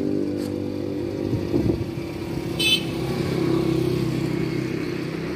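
An engine running steadily, with a short high-pitched beep about two and a half seconds in.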